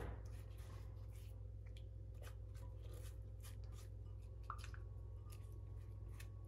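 Faint soft dabs and scrapes of a silicone pastry brush in a ceramic bowl of melted butter and on raw chicken skin, as short scattered clicks over a steady low hum.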